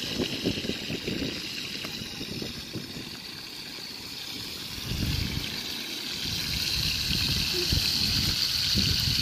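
Oil sizzling in a frying pan as halved spiny lobsters fry, the sizzle growing louder in the second half. Irregular low rumbling runs underneath.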